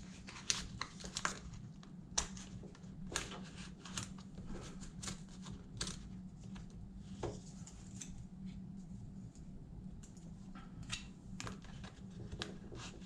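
Plastic credit cards being handled and slid into the card slots of a leather wallet: irregular light clicks and taps throughout, over a steady low hum.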